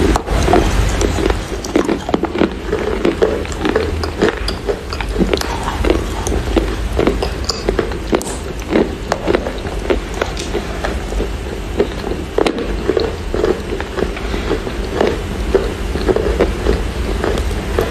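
Close-up biting and chewing of pieces of Chinese loess clay: a continuous run of sharp, irregular crunches as the hard clay breaks between the teeth.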